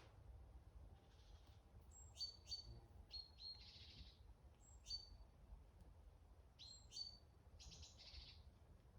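Small birds calling in a forest: faint, short, high chirps scattered through, several in quick pairs, with a few short raspy notes between, over a steady low rumble.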